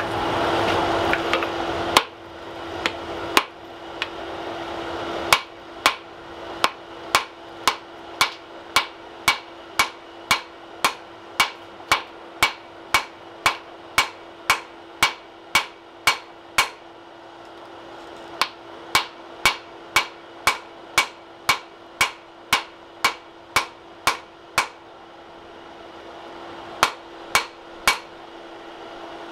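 Hand hammer striking a welding-hot ax blank on a steel anvil, about two blows a second in long runs with two short pauses, forge-welding the steel bit into the ax. A rushing noise fills the first two seconds before the blows start, and a steady low hum runs underneath.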